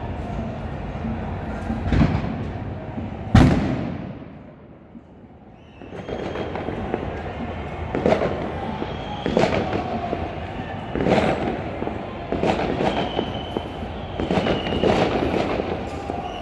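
Fireworks going off over a steady noisy background. The loudest bang comes about three seconds in and fades over a couple of seconds, then after a short lull a string of sharp bangs follows roughly every second.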